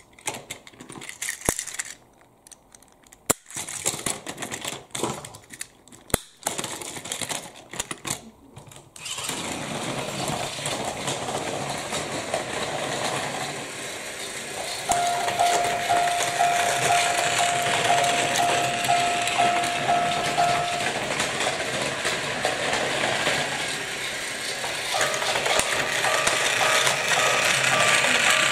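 Plastic clicks and knocks as Plarail toy trains and cars are set onto plastic track. Then a battery-powered Plarail engine runs along the track with a steady whirring rattle. Midway a steady electronic tone sounds for about six seconds, and it returns near the end.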